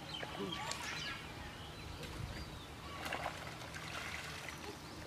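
Faint splashing and trickling of muddy pond water stirred by wading hands, with water poured out of a plastic bowl; brief louder splashes about a second in and again around three seconds in.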